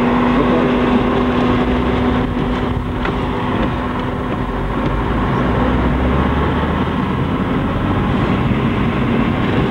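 Steady vehicle engine and tyre noise on a wet road, heard from inside the cab, with a low rumble and a steady hum that fades out about two seconds in.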